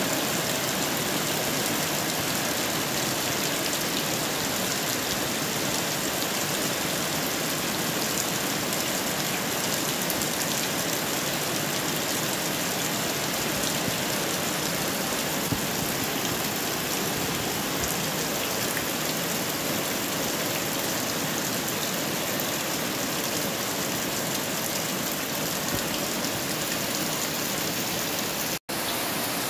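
Steady rain falling on garden foliage, potted plants and waterlogged ground: a dense, even hiss of drops. It cuts out for an instant near the end.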